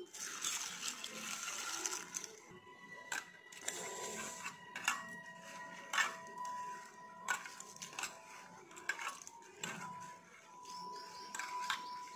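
Water poured into a steel bowl of lentils and rice, splashing for about two seconds. Then a hand swishes and rubs the grains in the water to wash them, with sharp clicks of grains and fingers against the steel bowl.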